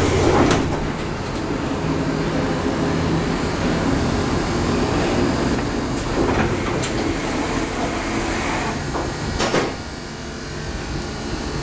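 Passenger elevator: its sliding doors finish closing at the start, then the car travels with a steady low hum from its drive. There is one brief clunk about nine and a half seconds in.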